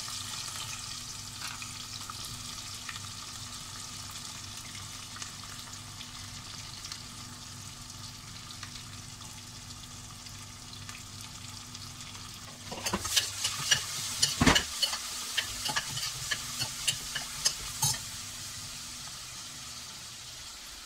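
Sliced onions sizzling in hot oil in a pressure cooker, a steady hiss that slowly fades. From about two-thirds of the way in, for some five seconds, a steel ladle stirs them, clinking and scraping against the metal pot.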